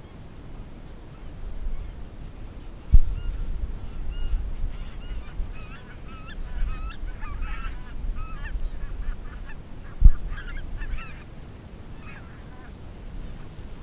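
A flock of wild geese calling, a chorus of repeated honks and yelps that begins about three seconds in and is busiest in the middle. Two brief low thumps, about three and ten seconds in, are the loudest sounds.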